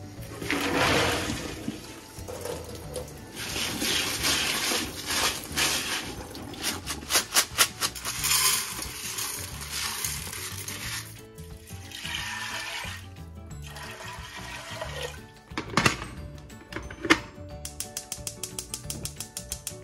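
Boiled red beans and their cooking water poured from a steel pot into a plastic colander in a sink, a splashing rush of water. Then the drained beans tip into an aluminium pressure cooker with a rattle, two sharp metal knocks come as the lid goes on, and a run of quick, regular clicks follows near the end. Background music plays throughout.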